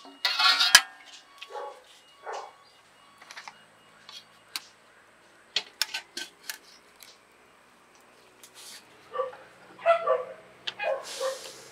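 A dog barking a few times: one loud bark just after the start, shorter ones soon after, and a cluster of barks near the end. Light metallic clicks of a spatula and steel plate fall in between.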